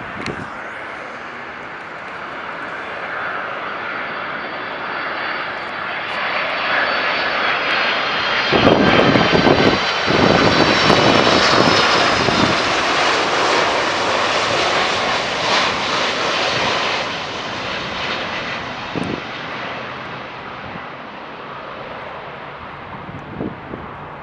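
Airliner flying past: its engine noise with a high whine builds over several seconds, is loudest around the middle, then fades away.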